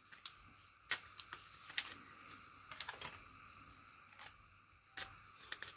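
A few faint, sharp clicks and taps, irregularly spaced over a quiet background hiss.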